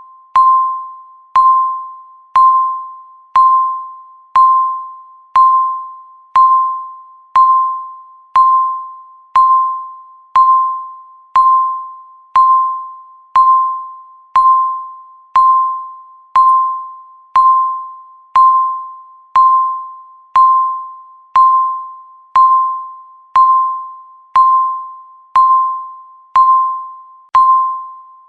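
Countdown timer beeping once a second: a short electronic tone, steady in pitch, that starts sharply and dies away quickly, repeating evenly.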